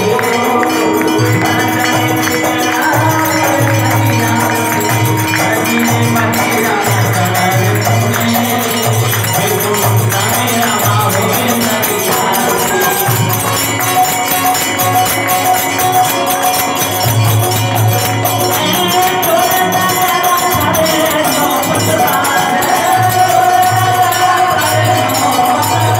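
Devotional aarti music: a steady, regular drum beat with jingling hand percussion under a sustained melody.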